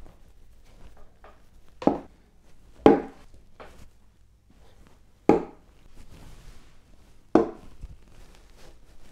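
Wooden chess pieces set down hard on a wooden chessboard: four sharp wooden clacks a second or two apart, with fainter clicks of pieces between.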